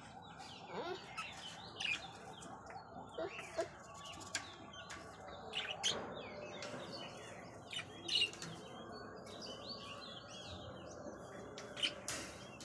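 Small birds chirping: short, scattered high chirps, one after another.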